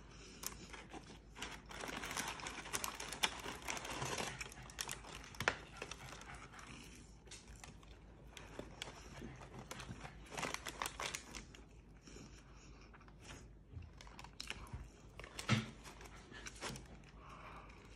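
Paper liner in a cardboard takeout box crinkling and rustling as fries are picked out of it by hand. The crackles are irregular and busiest a couple of seconds in.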